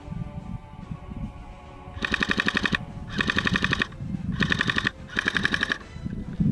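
Airsoft gun firing four short full-auto bursts of rapid, evenly spaced shots, the first beginning about two seconds in.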